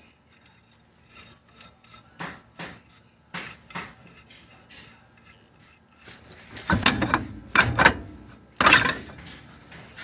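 Rear axle shaft being worked out of its housing: scattered light metal clicks, then three louder scrapes of metal rubbing on metal in the last few seconds.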